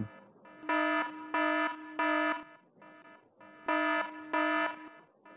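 Electronic danger-warning alarm sound effect: a buzzing tone sounding in blasts of about half a second, three in a row, then a pause and two more, with fainter repeats between them.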